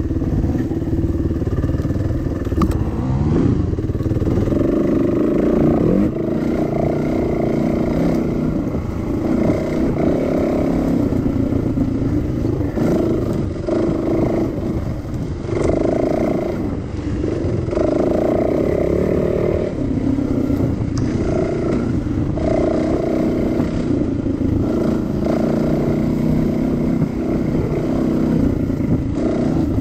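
Dirt bike engine ridden hard along a rough single-track, the throttle repeatedly opening and closing so the engine note rises and falls every second or two.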